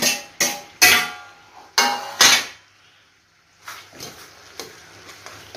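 Metal spoon knocking and scraping against a large aluminium cooking pot during stirring. Several sharp clanks with a brief ring come in the first two seconds or so, then after a short pause a run of lighter taps.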